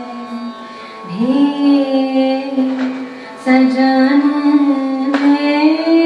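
A woman singing long, held notes in a raga-inflected Punjabi folk style, with the pitch wavering in ornaments. About a second in her voice slides up into a sustained note, and new phrases follow, all over a faint steady drone.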